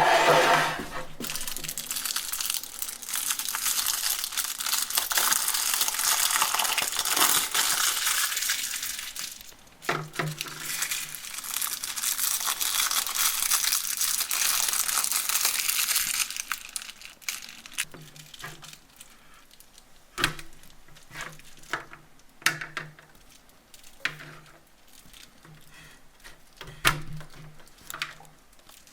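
Candy being crushed in a meat grinder: two long stretches of dense crunching and crackling, then a quieter run of scattered clicks and short low hums through the second half.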